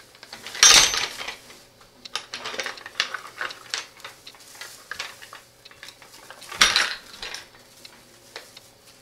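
Metal pulley blocks of a block and tackle clanking and rattling as they are picked up and handled, with two louder clanks, one about a second in and one about seven seconds in, and light clicks in between.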